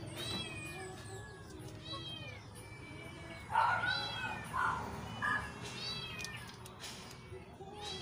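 Repeated meowing calls, rising and falling in pitch, about one every two seconds and loudest near the middle, over faint background music.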